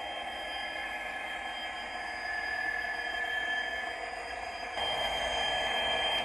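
Hornby Class 66 model locomotive's TTS sound decoder playing the Class 66 diesel engine sound through the model's small speaker as the loco runs along the track. A steady running sound that steps up louder about five seconds in.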